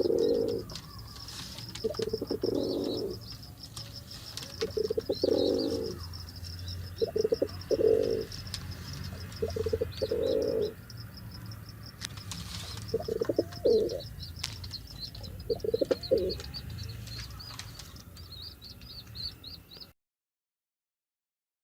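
Pigeon cooing in a series of low calls, about one every two to three seconds, with small birds chirping high and continuously behind it. The sound cuts off near the end.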